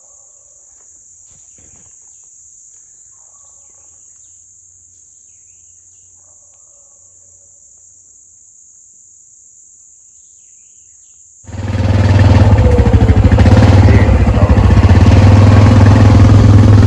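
A steady high insect chorus with a few faint bird chirps. About eleven and a half seconds in, it cuts abruptly to an ATV engine running loud while being ridden.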